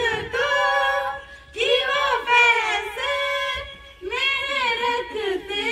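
A high voice singing a devotional song without instruments, in long held phrases with two short breaths, about a second and a half in and near four seconds in.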